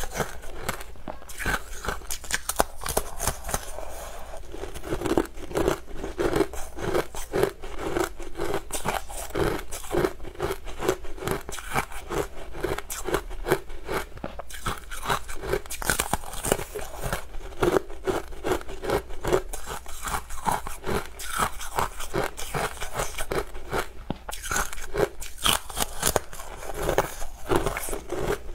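Crunching and cracking of frozen honey ice being bitten and chewed, mixed with scraping as pieces are prised out of a silicone mould: a dense, unbroken run of sharp crackles.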